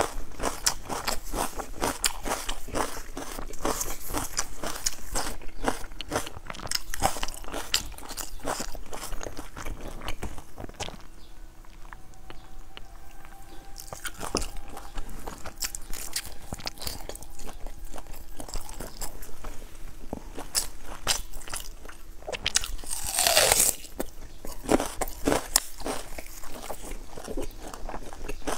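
Close-up crunching and chewing of crisp, charred flatbread: a dense run of sharp crackling bites that thins out for a few seconds around the middle.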